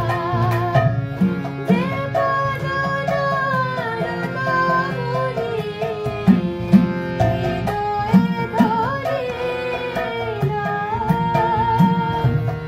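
A woman singing a Bengali devotional bhajan in long, sliding melodic phrases, accompanied by harmonium drones and chords and a tabla beat.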